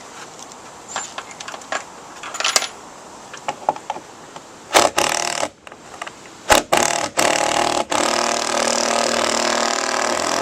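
Impact driver driving a FastenMaster ThruLok screw bolt through lumber without predrilling. A few light clicks come first, then short bursts of the driver hammering from about five seconds in, then one steady hammering run.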